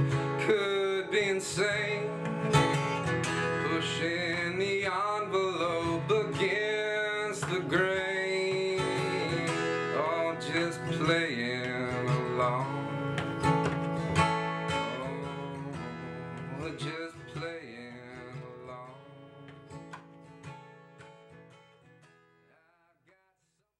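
Acoustic guitar, capoed, strummed and picked as a song ends, the sound fading out over the last several seconds.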